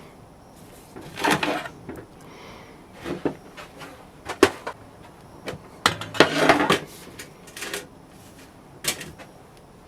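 Irregular knocks, taps and short scrapes of hand work with tools and a casting flask. The busiest scraping stretch comes about six seconds in.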